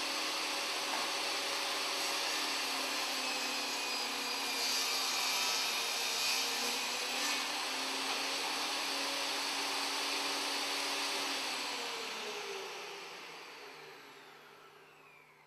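Ryobi BT3100 10-inch table saw running at full speed, its blade cutting through a piece of wood for a few seconds in the middle. About eleven seconds in it is switched off, and its whine falls in pitch and fades as the blade coasts to a stop.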